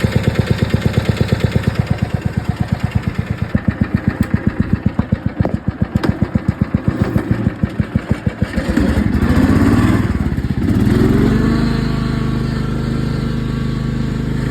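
Riding lawn mower's small engine running at low speed, each firing stroke heard as a separate putt at about eight a second, growing uneven. About two-thirds of the way in the revs rise and fall, then it settles into a steadier run.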